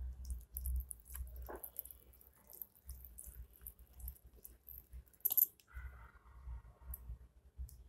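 Wire balloon whisk clicking and scraping against a ceramic bowl as wet custard-and-milk mixture is stirred into flour and powdered sugar, with a sharper clink about five seconds in and dull low thumps in between.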